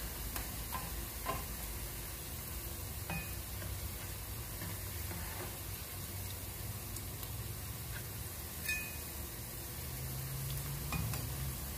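Hash brown patties of grated potato frying in shallow oil in a non-stick pan: a steady sizzle, with a few light clicks as a spatula is slid under the patties.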